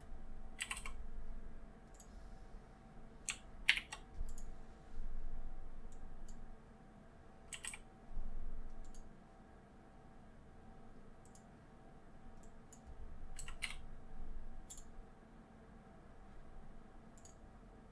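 Computer keyboard keystrokes and mouse clicks, a dozen or so short, sharp clicks spaced irregularly, with a faint steady hum between them.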